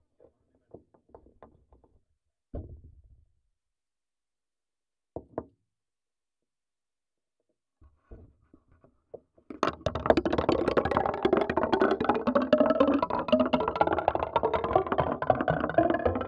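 Marbles knocking and clattering in a marble toy, picked up through a contact microphone: scattered single knocks at first, then from about nine and a half seconds in a dense, continuous rattle of many marbles clicking together.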